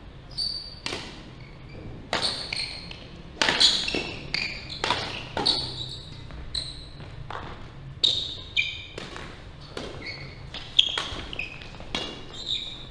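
Badminton doubles rally: irregular sharp cracks of rackets striking the shuttlecock, mixed with short high squeaks of court shoes on the wooden floor.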